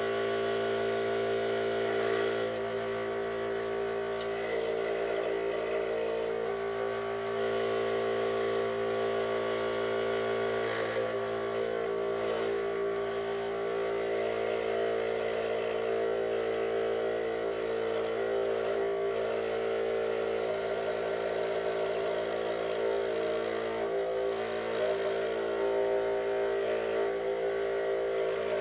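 Electric scroll saw running steadily while thin 5 mm plywood is fed through its blade, with a rougher cutting sound that comes and goes over the motor's hum.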